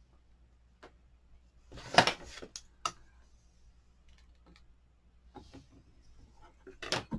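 Short knocks and taps as an inked photopolymer stamp on a Stamparatus stamping platform is pressed onto cardstock, with the loudest cluster about two seconds in and a couple more knocks near the end.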